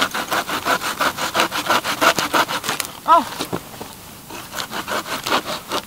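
Hand saw cutting through a dead tree branch in quick back-and-forth strokes, about five a second. The sawing pauses about three seconds in, then starts again for another second or so.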